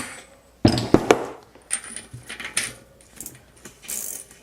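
Metal tools and bike parts clanking and clinking as they are handled: two sharp knocks close together about two-thirds of a second in, then lighter clinks and rattles.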